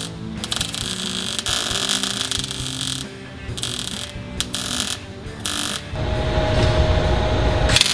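MIG welder arc crackling in short bursts with brief pauses between them, as a steel bracket is welded to sheet-metal floor. Near the end the sound turns louder and deeper, with a steady hum.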